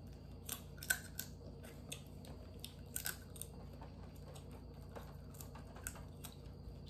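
Close-up eating sounds: scattered small clicks and smacks of chewing seafood and of fingers picking at crab legs in a foil pan.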